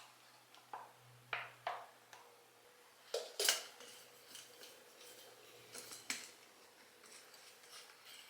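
A scattering of short, light clicks and knocks, with a louder pair about halfway through: small household objects being handled and set down.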